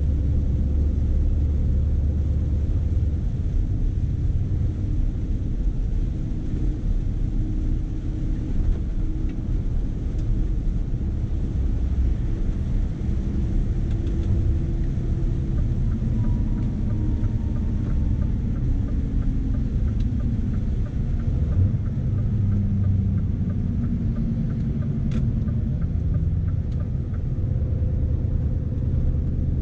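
Scania S520's V8 diesel engine running under load, hauling about 48 tonnes, heard from inside the cab as a deep steady rumble whose pitch drifts up and down as the revs change.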